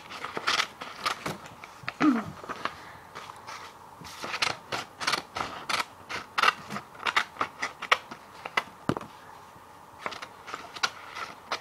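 Scissors snipping through paper in an irregular run of short, sharp cuts, with a brief pause before the last few snips.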